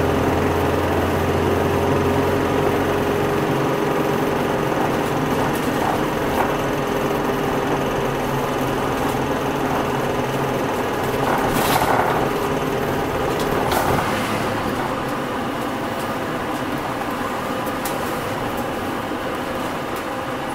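Cabin running noise of a Hino Rainbow non-step bus on the move: diesel engine and road noise with a steady whine that stops about two-thirds of the way through. A couple of short knocks come around the middle, and the sound eases slightly toward the end.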